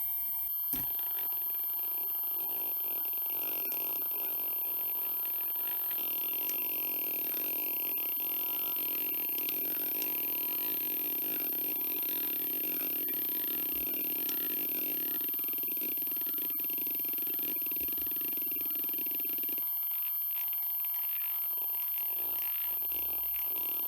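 Hitachi Deskstar 7K80 80 GB IDE hard drive seeking under HDMotion: the head actuator makes a continuous buzzing seek sound that wavers in pitch. Near the end it changes to regular seek clicks, about two a second.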